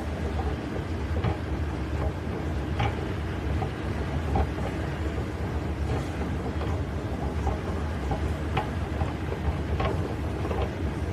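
Steady low rumble of a running escalator and indoor mall background noise, with a few faint clicks.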